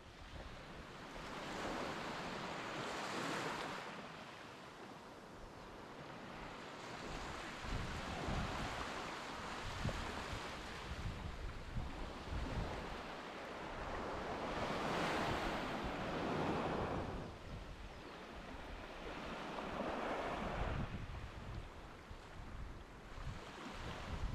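Surf washing onto a beach, the sound swelling and falling back in waves every few seconds, with wind rumbling on the microphone.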